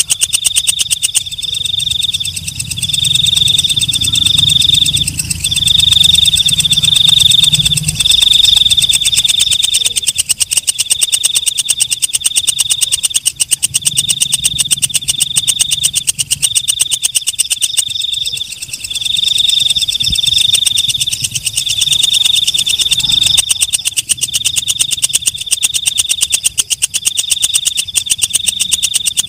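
Walang kecek, a green leaf-winged katydid, singing: a loud, rapid run of scraping pulses with a high ringing note that comes in bursts of a second or two separated by short gaps.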